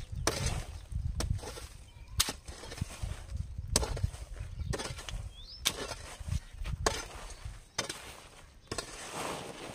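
Repeated blows of a digging tool chopping into earth while a foundation trench is dug, about one sharp strike a second with a dull thud under each.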